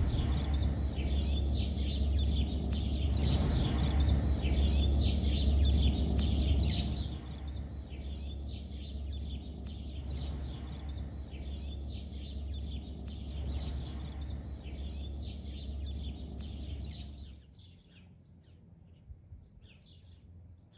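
Small birds chirping and singing again and again over a low rumble; the rumble eases off about seven seconds in. The last few seconds are nearly silent.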